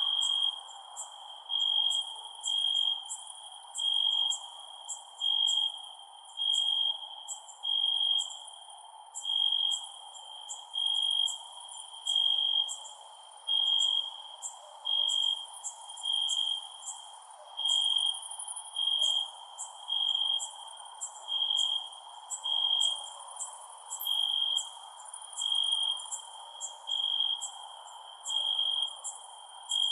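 Crickets chirping: one cricket's high, even chirp repeated steadily a little more than once a second, over quicker, higher insect ticks and a low steady background hiss.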